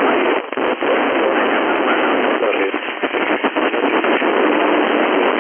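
11-metre band FM radio reception: loud, steady hiss and crackle squeezed into the receiver's narrow audio range, with no clear speech.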